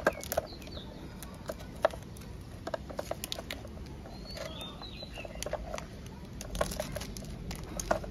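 Clear plastic wrap crinkling and crackling as it is snipped with small scissors and peeled off a skateboard truck, with a few sharp snaps. Birds chirp briefly a couple of times in the background.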